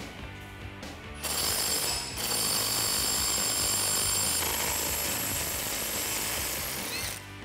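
Cordless Milwaukee Fuel impact wrench running on an 18 mm suspension-knuckle bolt, loosening it. It starts about a second in, dips briefly, changes note partway through and stops near the end.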